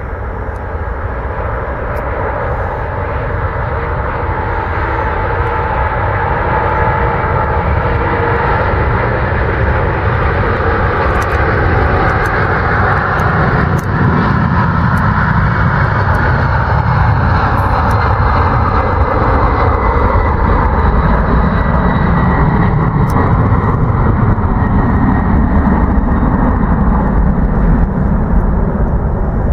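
Douglas DC-10-30F freighter's three General Electric CF6-50 turbofans at takeoff thrust as the jet rolls, lifts off and climbs out. The engine noise grows louder over the first several seconds, then holds loud and steady, with a thin high whine joining in about halfway through.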